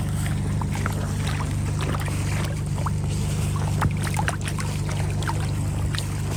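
Boots splashing and sloshing step by step through slushy meltwater lying on top of lake ice, with a steady low hum underneath.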